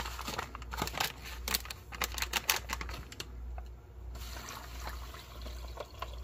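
Foil-lined drink-mix pouch crinkling and crackling as it is handled, then water pouring from a glass measuring cup into the pouch in the second half.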